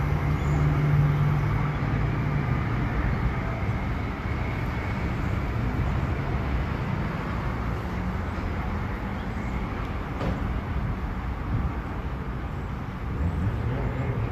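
Electric multiple-unit commuter train pulling away down the line, its low hum fading about two seconds in, leaving a steady rumble of wheels and outdoor noise.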